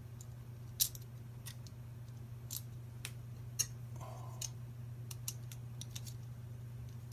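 Sharp, irregular small clicks and taps of machine screws and a printed extruder hub part being handled and fitted by hand, over a steady low hum.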